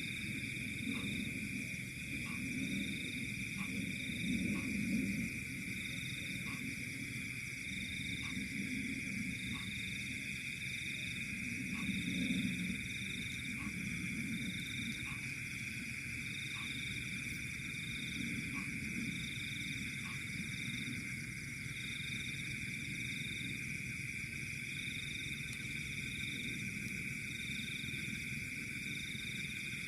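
Night chorus of frogs and insects: a steady high trill with a pulsing call repeating about once a second. Low croaks come and go through the first half.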